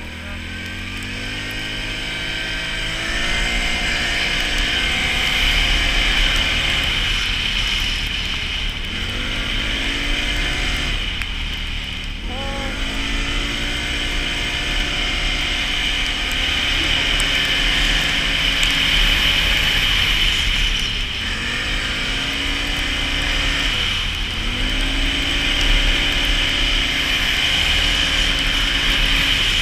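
Can-Am Renegade 570 ATV's V-twin engine under way, rising in pitch as the throttle opens and dropping back several times, with a steady high whine underneath.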